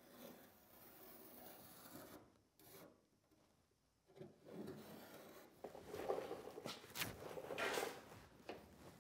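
A marker scratching along the edge of a sheet-metal patch panel held against a truck bed side, tracing the cut line, with the panel rubbing on the bed's metal. Soft strokes at first, a short pause, then louder rubbing with a few sharp ticks from about halfway through.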